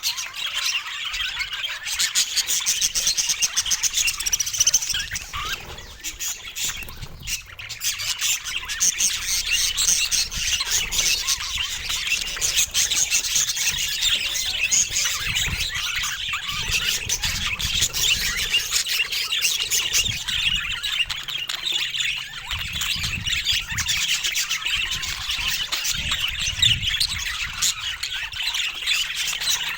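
Budgerigars chattering and chirping without pause, many quick calls overlapping.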